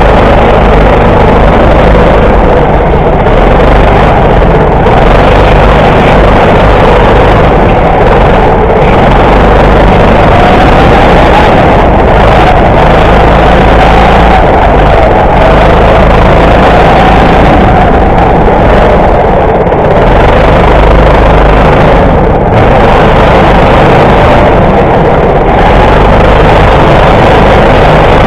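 Go-kart running at speed around a track, heard from on board: a loud, continuous engine noise whose pitch rises and falls as the kart speeds up and slows, with brief dips every few seconds.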